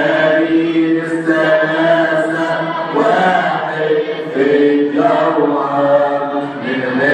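Men's voices chanting an Arabic Coptic Tasbeha hymn without instruments, in long held notes that step up and down in pitch every second or two.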